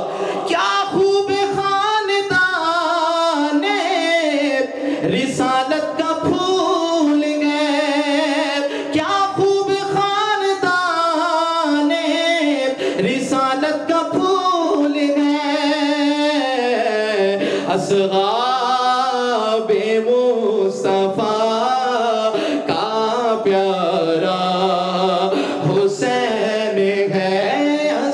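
A man singing an Urdu devotional manqabat in praise of Husain solo into a microphone, with no instruments, in long held notes with wavering ornaments.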